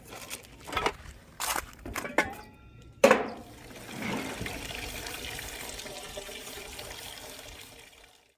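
A few scattered clicks and knocks, then about three seconds in a sudden start of water running that fades away over about five seconds.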